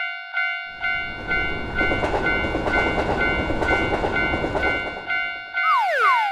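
Japanese railroad crossing bell ringing its repeated "kan-kan" about twice a second while a train rushes past. The train noise stops about five and a half seconds in and a quick falling glide follows as the bell keeps ringing.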